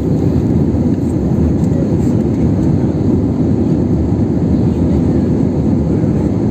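Steady, loud, low-pitched airliner cabin noise from the engines and rushing air, heard from inside the passenger cabin during the climb.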